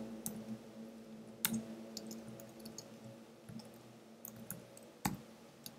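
Sparse keystrokes on a computer keyboard while typing code: a handful of separate, faint clicks spread irregularly over several seconds, over a faint steady hum.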